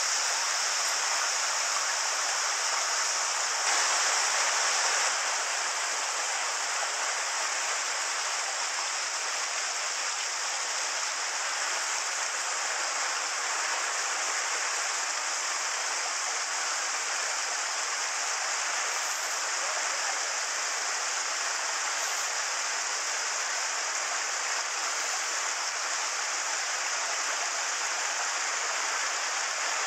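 Mountain stream water rushing steadily over rocks, with a small waterfall pouring into a pool. Slightly louder for the first five seconds or so, then even.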